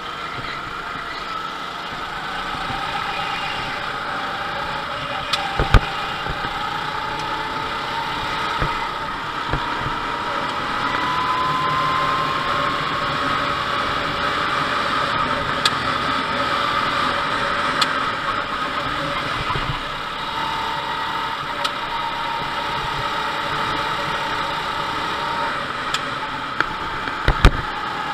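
Go-kart engine heard from the driver's seat while lapping at speed, its pitch climbing slowly over several seconds and then holding steady. A few sharp knocks cut through it, a cluster about five seconds in and another near the end.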